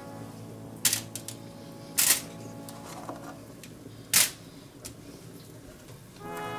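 A few sharp, irregular clacks of kitchen prep work, like utensils or a knife hitting a cutting board, over soft background music.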